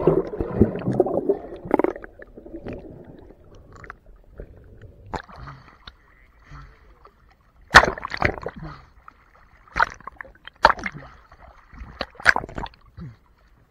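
Lake water splashing and gurgling around a camera held at the surface: a loud bubbly churn as it comes up from underwater at the start, then sudden short splashes every second or two as small waves slap over it.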